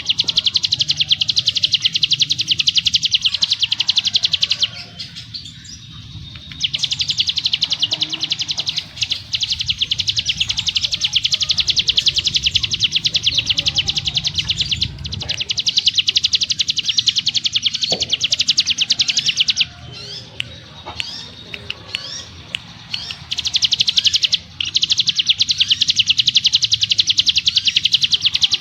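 Ciblek gunung (hill prinia) singing its long, rapid trill: high notes repeated very fast in dense runs lasting several seconds, broken by short pauses with a few single chirps, including a longer pause about five seconds in and another near twenty seconds.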